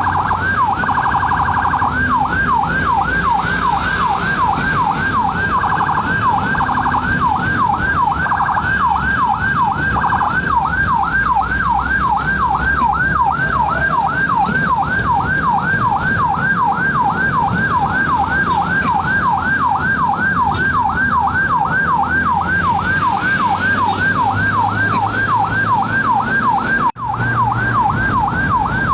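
Ambulance siren on yelp, sweeping rapidly up and down about three times a second over the vehicle's low road rumble. It drops out for an instant near the end.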